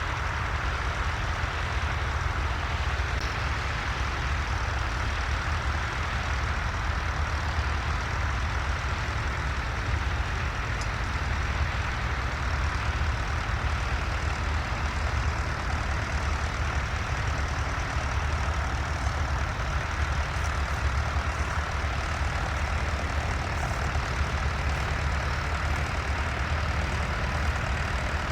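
Tractor engine running steadily with a deep, even hum and no change in pace.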